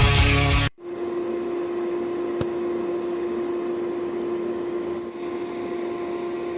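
Rock music cuts off suddenly under a second in. After it comes a steady machine hum with one strong steady tone, and a single click about two and a half seconds in.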